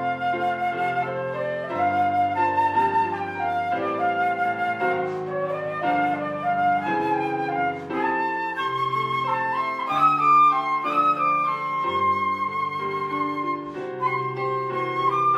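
Instrumental music: a flute plays a slow melody with vibrato over sustained keyboard chords that change every few seconds.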